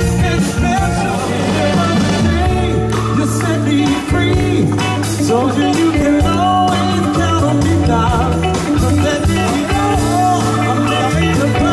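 Live band playing classic Motown-style soul music with a singer's voice, amplified through a PA system.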